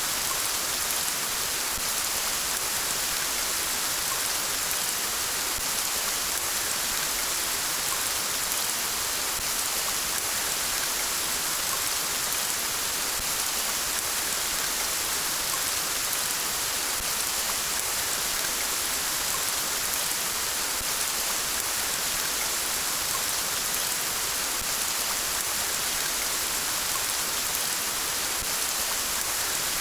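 Steady rain falling, an even hiss with a fine patter of drops that does not change.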